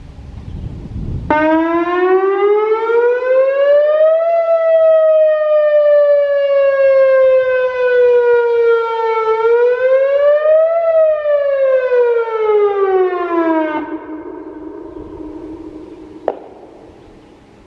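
Whelen WPS-2802 electronic siren sounding a loud rising and falling tone. It starts abruptly, climbs, sinks slowly, climbs again and falls, then holds a low steady note before cutting off with a click near the end.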